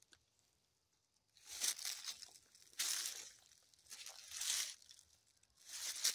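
Footsteps crunching through dry fallen leaves: four crunches about a second and a half apart, at a slow walking pace.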